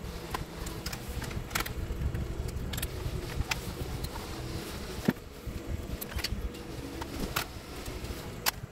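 Scattered plastic clicks and taps from an Acer Aspire laptop's plastic bottom case as it is handled and turned over, with a sharper knock about five seconds in. A low steady rumble runs underneath.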